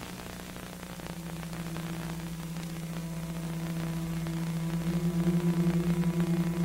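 Low sustained drone with a second, higher tone above it, swelling about five seconds in with a slow wavering pulse. A rushing noise fades out at the start.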